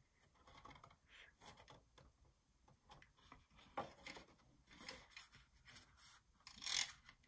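Faint rustling and rubbing of folded patterned cardstock being handled and pressed into a pocket shape by hand, with a few light taps; slightly louder rubs about four seconds in and near the end.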